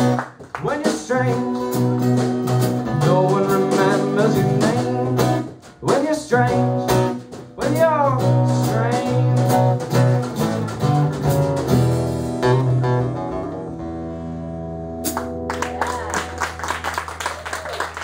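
Live acoustic band playing an instrumental passage: two acoustic guitars over a snare-drum beat. About twelve seconds in the drumming drops away, one more hit comes a few seconds later, and the guitars strum on to the end of the song.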